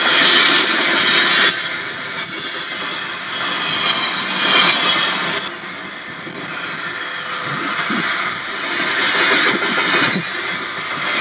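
Diesel-hauled freight train passing close by. It is loudest in the first second and a half as the locomotives go by, then a long string of freight cars rolls past with a steady wheel-and-rail rumble that rises and falls.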